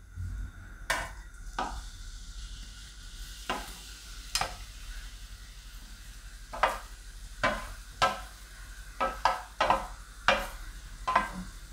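Spatula scraping and tapping grated fresh turmeric off a steel plate into a pan of melted ghee: irregular short scrapes and clinks against the metal over a faint sizzle.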